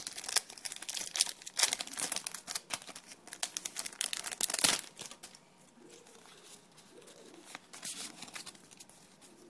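Foil wrapper of a Pokémon Platinum booster pack crinkling and tearing as it is ripped open by hand. It dies down after about five seconds.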